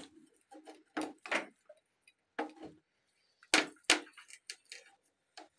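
Irregular clicks and scrapes of a soldering-iron tip working against a white plastic washing-machine lid piece during plastic welding, with the two loudest clicks close together about three and a half seconds in.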